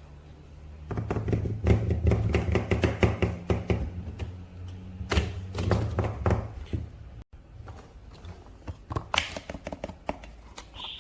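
Hands handling a boxed action figure and its plastic and cardboard packaging: a run of taps, clicks and knocks, busiest in the first half.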